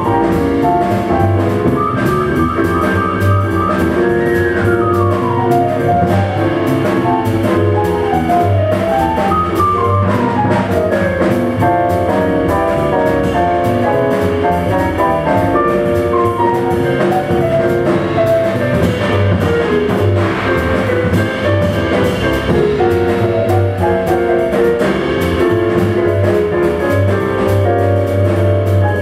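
Jazz piano trio of stage piano, upright double bass and drum kit playing a swing tune, the piano taking the lead with quick runs of notes, several falling in pitch, over bass and drums.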